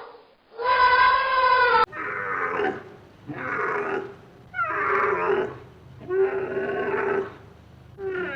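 Animal calls: one call, then a cut to another recording of about five repeated calls, each roughly a second long, with a falling pitch.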